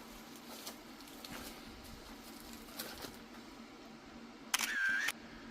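Faint handling of a shipping box and packaging: small clicks and crinkles, with a brief squeaky tearing sound about four and a half seconds in.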